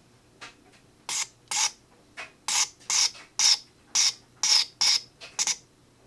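Mercedes OM617 turbo-diesel injector nozzle popping on a hand-lever pop tester during an opening-pressure and spray test: a run of short, sharp hissing spray bursts, about two a second. The nozzle set it belongs to pops around 1700 PSI, below the roughly 2000 PSI that turbo injectors should reach.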